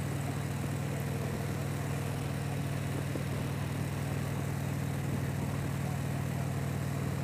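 Harley-Davidson touring motorcycle's V-twin engine running steadily at highway cruising speed, with a constant rush of wind and road noise.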